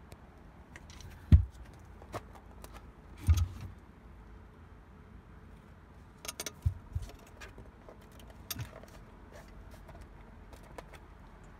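A blown Boss CXX12 12-inch car subwoofer being handled on a carpeted floor: a few dull thumps as it is moved and set down, the loudest about a second in, with small clicks and rattles in between.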